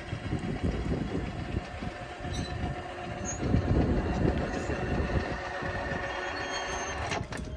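Low rumble of a train at a railway level crossing, swelling about three and a half seconds in, over a faint steady tone. A few sharp clicks come in near the end.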